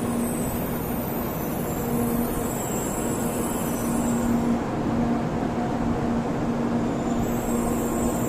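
A train standing at the platform, running steadily: a constant low hum over a continuous rumble, with faint high-pitched whines that fade out about halfway through and come back near the end.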